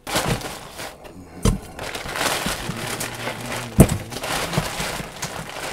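Plastic bag rustling and crinkling as fish are pulled out of it, with two sharp knocks as they land in a stainless steel bowl. The later knock, nearly four seconds in, is the louder.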